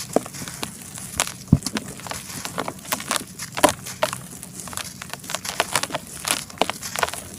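Charcoal being crumbled and crushed, with many irregular sharp cracks and crackles.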